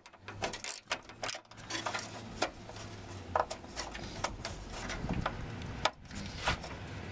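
Hand ratchet clicking in short irregular ticks as a dry 13 mm bolt is wound out.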